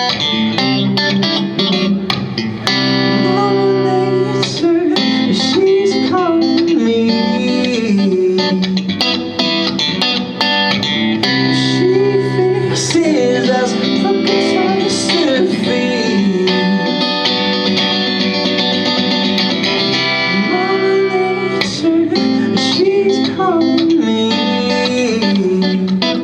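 Live guitar music in an instrumental passage of a song: picked and strummed guitar with a melody line that bends in pitch.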